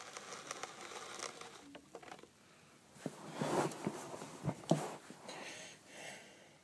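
Soft rustling, crinkling and small knocks from hands handling the frame of a homemade toy car wash model. The loudest stretch, a louder rustle with a few sharp knocks, comes about halfway through.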